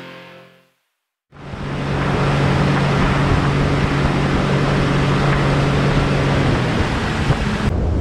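Music fading out, then after a brief silence a boat's engine running steadily under way, with a low hum under loud wind rush and water noise.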